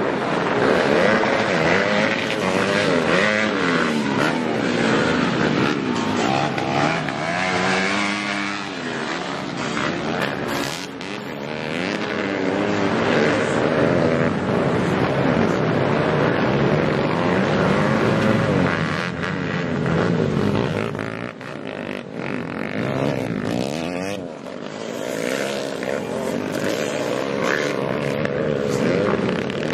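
Several dirt bike engines revving and accelerating around a muddy grasstrack, their pitch repeatedly rising and falling as they shift, with more than one bike running at once.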